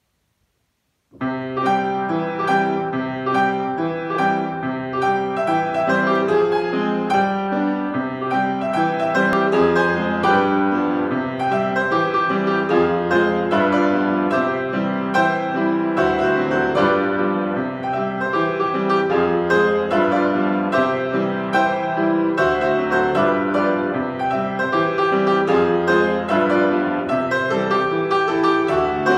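Solo grand piano playing a ragtime, beginning about a second in after a moment of silence.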